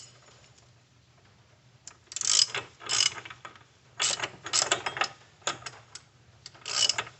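Hand socket ratchet clicking in short bursts of strokes as a bolt is run down snug, starting about two seconds in after a quiet stretch.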